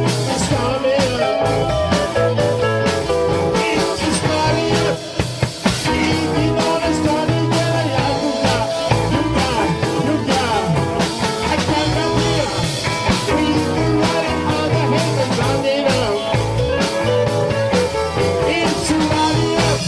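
Rock band playing blues-style rock: electric guitars over a steady drum beat, with a short break about five seconds in.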